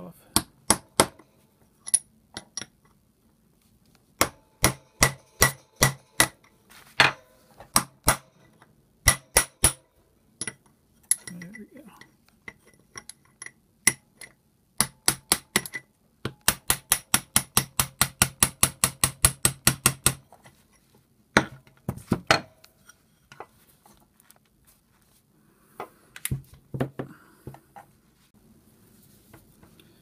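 Sharp metal-on-metal taps of a hammer on a pin punch, working the spindle assembly of a circa-1972 Fein ASG 658 tapper off its shaft: scattered single taps and pairs, then a quick even run of about seven taps a second for several seconds, then a few last taps.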